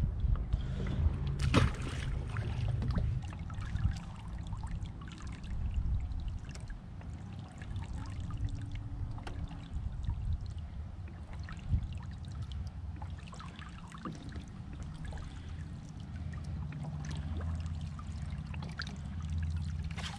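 Water lapping and trickling against a bass boat's hull, over a steady low rumble, with scattered light clicks and one sharper click about a second and a half in.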